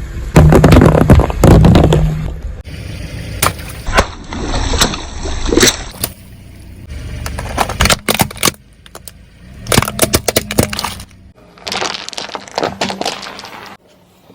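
Objects cracking and crunching as they break under a car's tyres. A loud, dense run of crunching over a low hum comes about half a second in and lasts about two seconds. After that come scattered sharp cracks and snaps in clusters.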